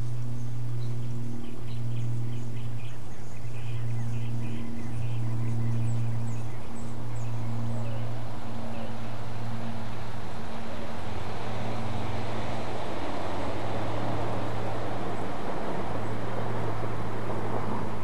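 A steady low hum, with a few faint high chirps in the first half and a rushing noise that swells through the second half.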